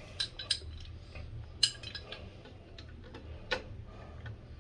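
Adjustable wrench being set and fitted onto a chrome tub-spout fitting: scattered sharp metal clicks and clinks, the loudest about a second and a half in and another near three and a half seconds.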